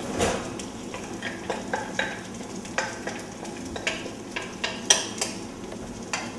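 Diced peppers, zucchini and aubergine going into a hot oiled pan and sizzling, while a utensil scrapes and clinks repeatedly against the glass bowl, the sharpest clinks about five seconds in.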